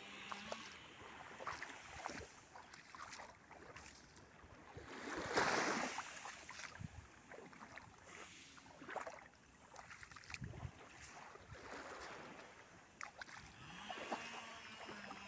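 Small waves lapping and washing onto a sandy shore, with one louder wash about five seconds in.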